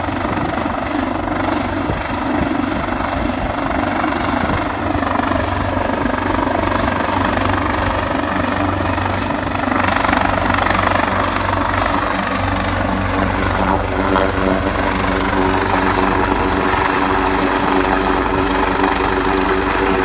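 Coastguard rescue helicopter running close by, a steady rotor thud with turbine whine, growing a little louder about halfway through.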